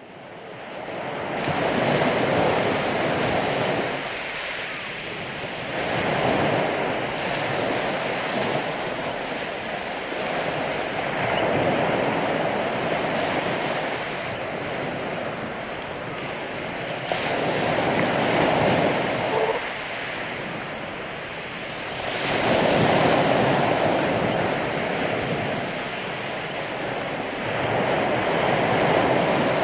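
Ocean surf breaking on a beach: waves swell and wash in about every four to five seconds. The sound fades in over the first couple of seconds.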